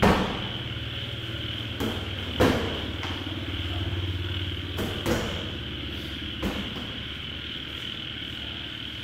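Boxing gloves landing punches in sparring: about six sharp smacks, the loudest right at the start and another about two and a half seconds in. Under them runs a steady high drone and a low hum.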